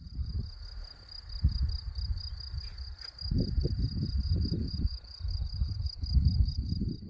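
Insect chirping in a fast, even, high-pitched pulse that never pauses, over a low rumble that rises and falls.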